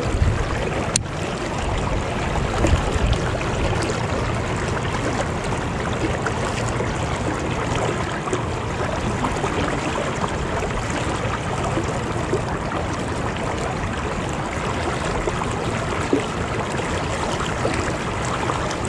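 Steady rushing of a river's current flowing close by, with a single sharp click about a second in.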